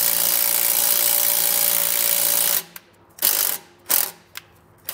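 Cordless impact driver hammering a self-tapping screw in through a half-inch socket. It runs steadily for about two and a half seconds, then stops and is triggered in three short blips.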